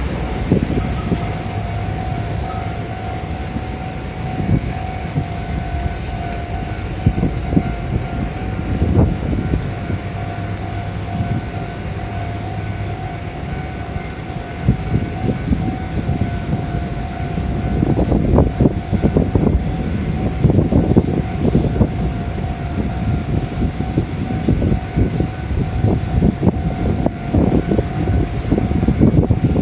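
Warning signal of a truck-only level crossing sounding a steady tone at one pitch, over wind buffeting the microphone and the rumble of heavy vehicles, which grows louder in the second half.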